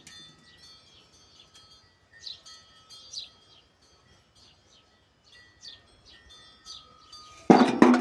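Small birds chirping faintly in short, falling calls. A sudden loud knock comes about seven and a half seconds in.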